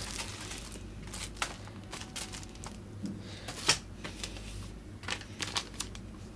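Plastic-wrapped paperwork and papers rustling and crinkling as they are lifted out of a cardboard box, with scattered light taps and one sharper tap about three and a half seconds in, over a steady low hum.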